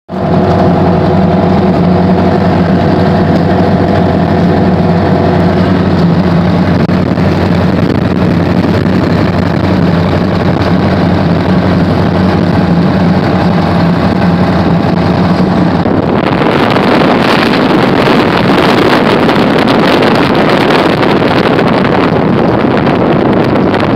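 Cessna Skymaster's propeller engine running steadily at taxi power, a loud, even engine note. About two-thirds of the way through, a loud rushing wind noise on the microphone abruptly takes over and masks the engine.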